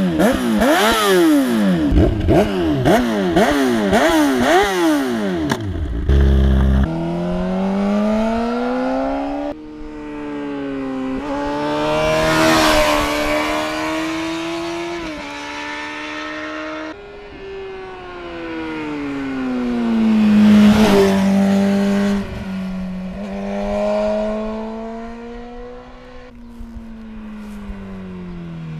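Honda CBR600RR's inline-four engine through an Arrow Indy Race full-system race exhaust. It first revs in quick repeated rises and falls. After a cut it accelerates along the road, its pitch climbing through the gears and dropping at each shift, with two louder passes, and fades away with falling pitch near the end.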